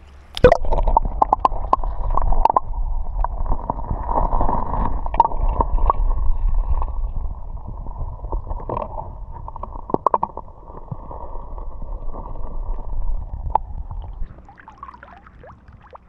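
Muffled water sound picked up with the camera held underwater in a river: a dull, continuous gurgling rush with scattered clicks and knocks against the camera. It starts abruptly about half a second in and fades out a couple of seconds before the end as the camera comes back up.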